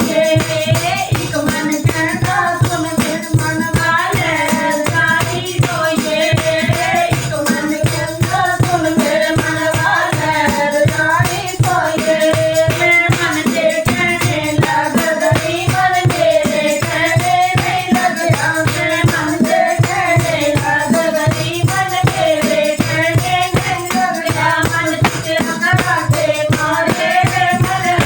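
Devotional bhajan music: a wavering melody line over a steady, even drum beat, with jingling hand percussion keeping time throughout.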